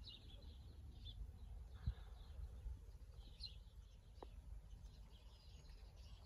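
Faint outdoor ambience: small birds chirping now and then over a low, steady background rumble, with one soft thump about two seconds in.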